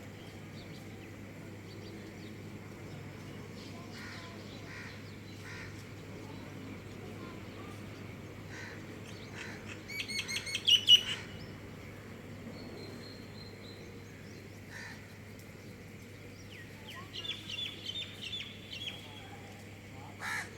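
Wild birds calling: scattered short chirps, a quick run of about ten loud calls about halfway through that is the loudest sound, and a rapid chirping series near the end, over a steady low hum.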